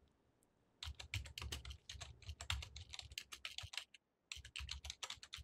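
Typing on a computer keyboard: a faint, quick run of key clicks starting about a second in, with a short pause near the end before the typing resumes.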